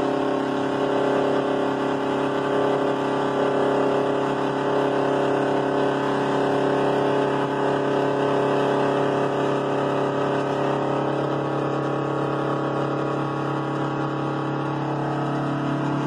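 Straight-piped Detroit Diesel 8V71 two-stroke V8 in a 1980 GMC General semi truck running steadily under way, its exhaust note holding an even pitch.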